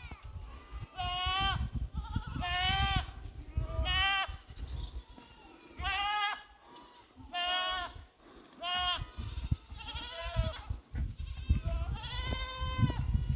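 Goats bleating over and over: about eight quavering calls, each half a second to a second long, spaced a second or so apart.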